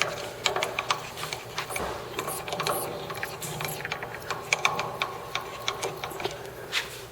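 Metal clicks, knocks and scraping at an uneven pace from a bench lathe's tailstock being slid along the bed and its lock lever worked, over a faint steady hum.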